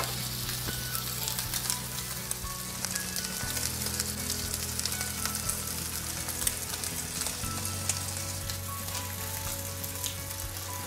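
Two chuck eye steaks searing in hot avocado oil in a cast-iron skillet, with a pat of butter melting on one: a steady, crackling sizzle. Quiet background music with low held notes runs underneath.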